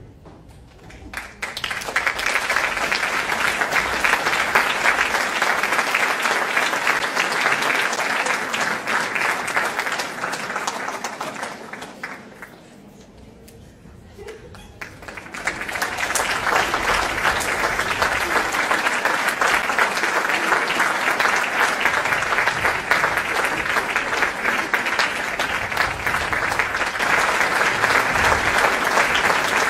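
Theatre audience applauding. The clapping starts a second or two in, fades to a lull a little before halfway, then swells up again and holds steady.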